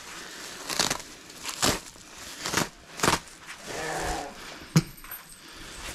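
Straw and a woven sack rustling and crinkling in short bursts as a straw bale is pulled open by hand. A short pitched call sounds about four seconds in.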